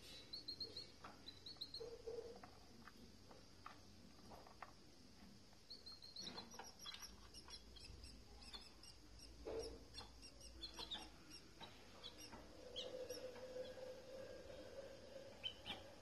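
Canaries giving faint, short high chirps, with a quick run of rapid high cheeps near the middle and a few soft clicks.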